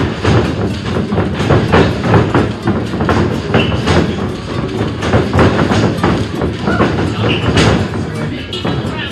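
A wrestler running the ropes in a wrestling ring: quick footsteps on the raised ring floor and the body hitting the ropes. Many impacts come in close succession without a break.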